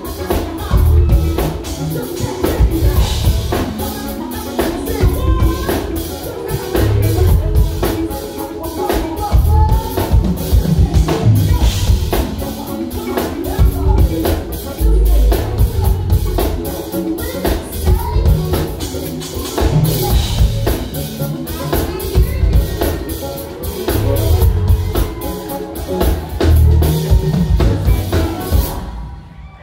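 Live band playing: a drum kit keeping a steady beat under bass, electric guitar and saxophones, with a singer. The music cuts off sharply near the end.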